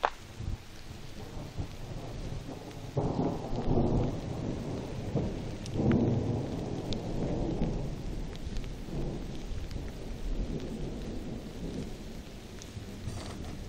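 Thunder rolling: a long low rumble that swells about three seconds in, peaks again around six seconds and slowly fades, with rain falling throughout.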